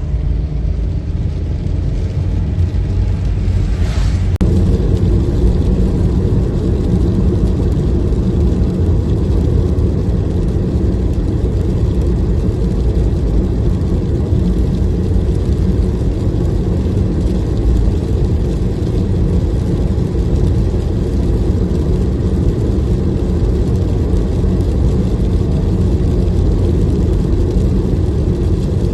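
A moving car's engine and road noise, a steady low rumble that grows slightly fuller about four seconds in.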